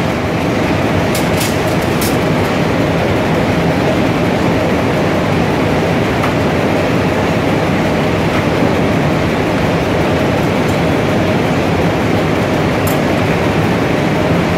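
Steady, loud mechanical din of running textile mill machinery, with a few sharp clicks in the first two seconds.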